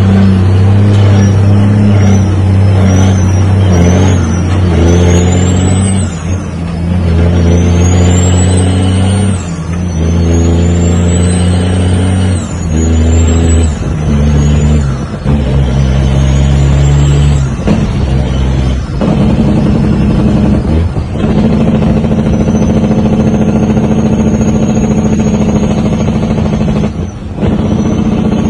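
Heavy diesel truck engine pulling up through the gears, heard from inside the cab. The engine and a high turbo whistle climb in pitch in each gear and drop away at each shift, about ten quick shifts in the first 18 seconds. After that the truck settles into a steady pull with a level turbo whine.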